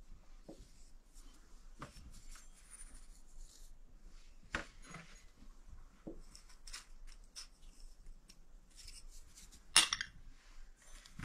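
Light clinks and taps of a metal spoon and small glass cups against a glass mixing bowl as dry ingredients are spooned into flour, with one sharper, louder clink of glass about ten seconds in.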